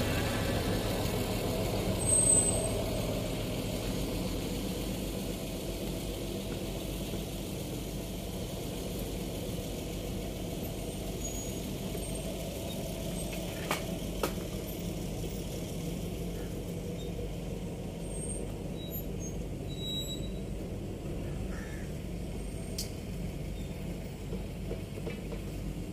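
Steady low mechanical drone, with two faint clicks about 14 seconds in.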